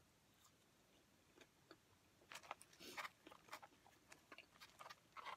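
Faint close-up chewing of French fries: soft, irregular wet mouth clicks and small crunches, starting about two seconds in after a near-silent start and loudest about three seconds in.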